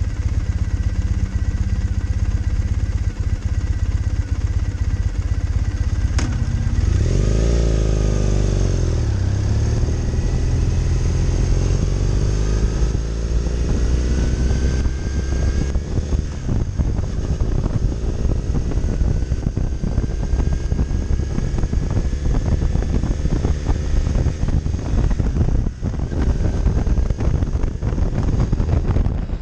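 Triumph Thruxton's parallel-twin engine idling, then revving up as the motorcycle pulls away about six seconds in, its pitch climbing and dropping back through several upshifts. Wind noise builds as the bike gathers speed.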